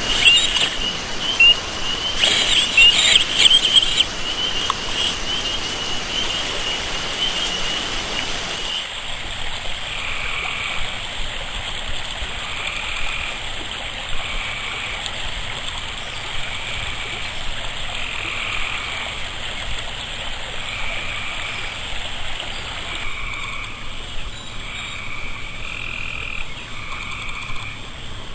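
For the first nine seconds there is a high, steady whine with brief rises in pitch from an RC crawler's electric motor and gears as it climbs. After a cut, a frog croaks over and over, one short call about every second and a half.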